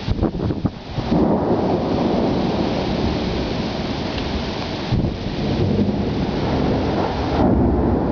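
Long rolling thunder from an approaching thunderstorm: a deep, continuous rumble that swells and eases, with a few short knocks in the first second.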